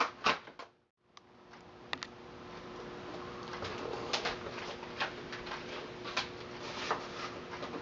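Quiet room tone with a steady low hum and scattered light clicks. The sound cuts out completely for a moment about a second in, where the camera's recording is stopped and restarted.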